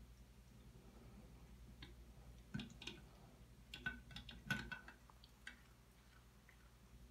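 A cat's paw and claws tapping and clicking on a metal bathtub spout: a cluster of quick, light clicks and taps in the middle of a few seconds of near silence, a few with a faint metallic ring, over a low steady hum.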